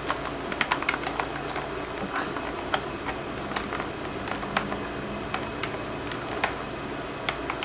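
Scattered light clicks and taps from handling a die-cast scale model and its plastic packaging, coming irregularly and bunched in the first couple of seconds, over a steady low hum.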